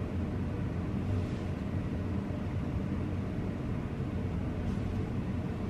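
Steady low hum of room background noise, even throughout, with no distinct sounds.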